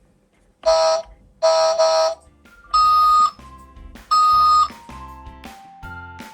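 Electronic sound effects from a toy concrete mixer truck's sound module: four loud, pitched beeps with quieter tune-like tones between them, cutting off abruptly at the end.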